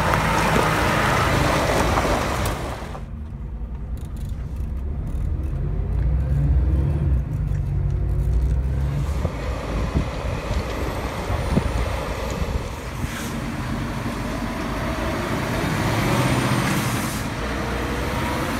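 Scania heavy trucks' diesel engines running as they pull away and drive past, the engine note rising and falling with the revs, with tyre and road noise.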